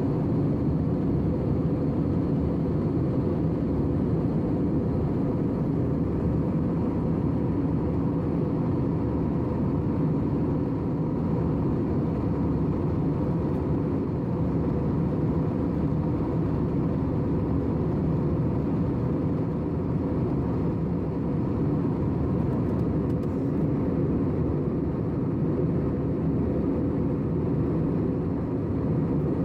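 Steady cabin noise of an airliner in cruise: a low, even rumble of engines and airflow, with a faint steady tone above it.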